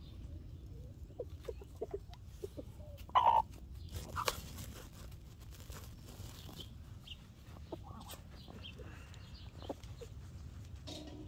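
Chickens clucking, with one loud cluck about three seconds in and another about a second later, and softer short calls in between.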